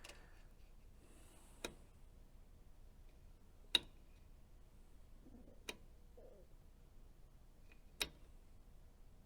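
Four sharp, separate clicks about two seconds apart over a faint steady hum, from switches being set on a tube tester while a radio tube is tested.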